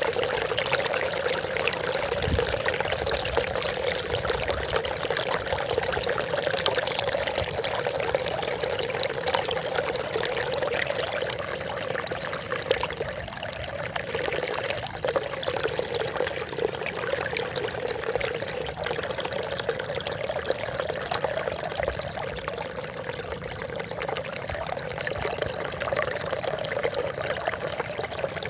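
Trickling water, a steady pour splashing without a break.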